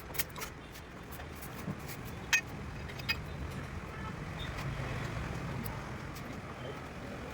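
Workshop work on a motorcycle clutch: a few short sharp clicks, the loudest about two and a half seconds in, over a steady low background hum.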